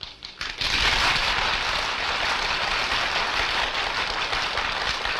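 Audience applauding: a few scattered claps, then dense, sustained applause from about half a second in.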